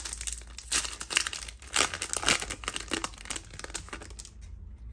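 Foil Yu-Gi-Oh booster pack wrapper being torn open and crinkled by hand: a run of sharp crackles that thins out near the end.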